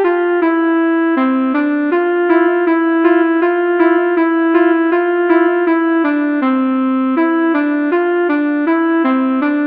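Pianika (melodica) playing a quick melody of short, reedy notes, several a second, imitating a telolet basuri bus-horn tune, with a faint click as some notes start.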